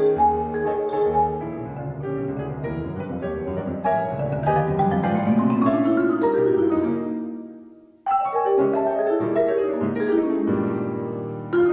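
Marimba and grand piano playing a contemporary classical duet: pulsing repeated chords, then a long rising run that grows louder, then fades away to a brief near silence about eight seconds in. The two instruments then come back in with rhythmic mallet strokes and chords, ending on a sharp loud accent.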